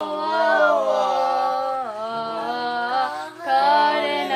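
Vocal music: a sung melody with several pitched voices or parts sounding together, dipping briefly near the end.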